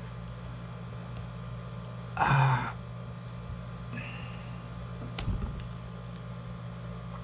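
Smartphone box being worked open: a brief scraping rustle of the packaging about two seconds in, then a few light clicks and taps, over a steady low hum.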